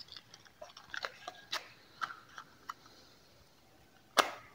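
Small clicks and rustles of a matchbox and match being handled, then about four seconds in a match struck once against the side of the box: a short, loud scratch that flares and dies away.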